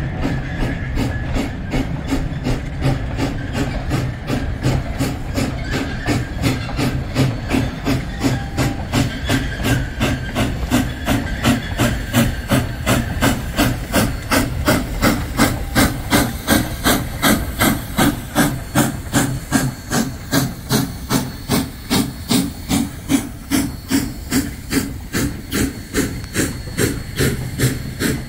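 Durango & Silverton narrow-gauge steam locomotive No. 473, a K-28 2-8-2, working past with a steady, evenly spaced exhaust chuff and a hiss of steam. It is loudest as the engine passes close, about halfway through and after.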